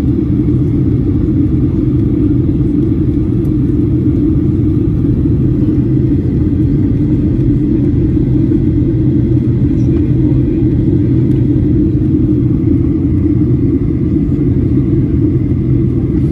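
Steady low rumble of a jet airliner's cabin in flight: engine and airflow noise heard from a window seat.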